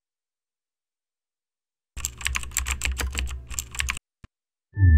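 Computer keyboard typing sound effect: a fast run of key clicks for about two seconds, starting about two seconds in. A single click follows, then a deep hit as electronic music begins at the very end.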